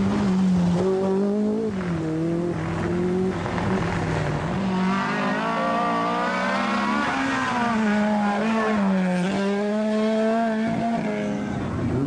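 Group B rally car engine running hard, its pitch dipping and climbing again several times as the driver lifts and gets back on the throttle.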